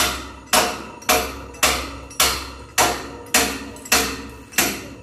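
A steady series of sharp metallic knocks, nearly two a second and evenly spaced, each ringing briefly before the next.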